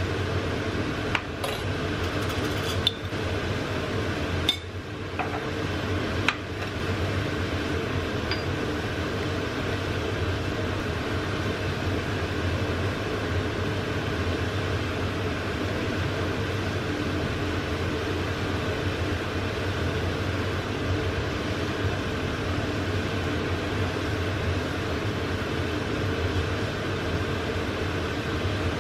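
A steady kitchen hum under a simmering pan, with four light clinks of a utensil against the metal pan in the first six seconds.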